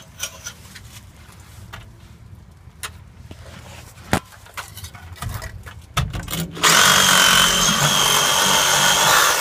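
A cordless power tool working on the truck's exhaust pipe runs steadily for about the last three seconds, with a high whine. Before it starts there are scattered clicks and knocks of handling the pipe.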